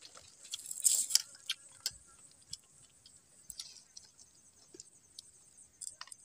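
Quiet, scattered clicks, clinks and scrapes of people eating with their hands from plates, busiest about a second in, over a steady faint high insect drone.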